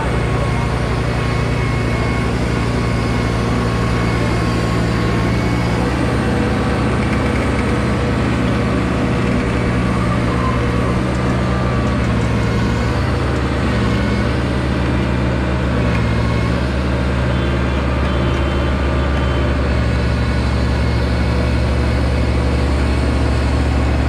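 Sumitomo HA60C asphalt paver's diesel engine running steadily close by, its pitch shifting slightly now and then.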